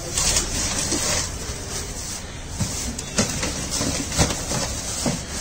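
Plastic wrapping crinkling and rustling as an alloy wheel is unwrapped in its cardboard box, with several short knocks.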